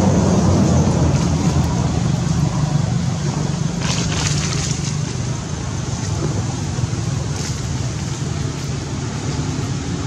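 Steady low background rumble, with a brief rustling hiss about four seconds in.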